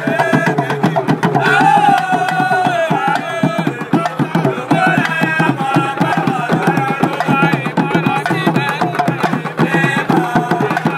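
Egungun ceremonial music: skin-headed hand drums played in a fast, dense rhythm while a group of men sing along.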